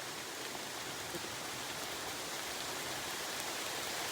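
Steady rain falling, with a few faint drop ticks.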